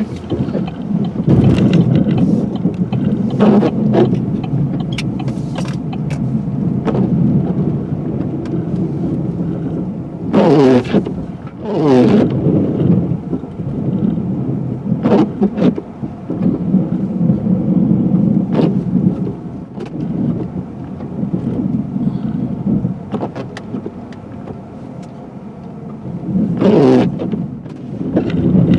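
Pickup truck plowing snow: the engine runs under load while the plow blade scrapes and pushes snow, making a steady rumble. Several short whines rise and fall, around ten to twelve seconds in and again near the end.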